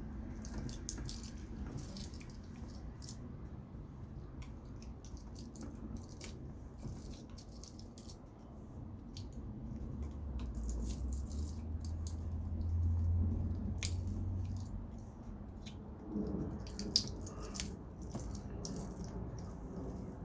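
Scattered small metal clicks, snips and scrapes of hand tools working copper: wire-cutting pliers and a screwdriver prying. A low rumble swells and fades in the middle, and a quick run of knocks comes near the end.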